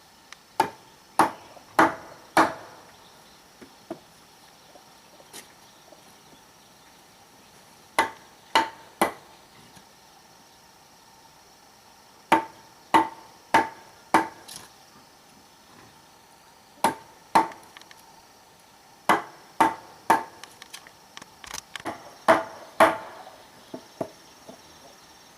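A hand tool striking wood in short runs of two to four sharp blows about half a second apart, each blow with a brief ringing note, with pauses of a few seconds between runs.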